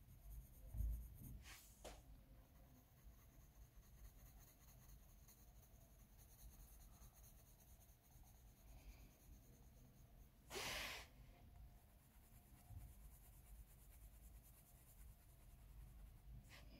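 Near silence: faint strokes of a soft coloured pencil (Derwent Coloursoft) laid lightly on paper, with a soft low bump about a second in and a short rush of breath-like noise a little past the middle.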